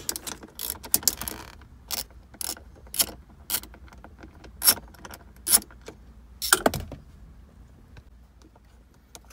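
Socket wrench with a 10 mm socket and extension clicking and clinking against metal as the bolts on a traction-control sensor module are undone. Sharp separate clicks come every half second to a second, stopping about seven seconds in.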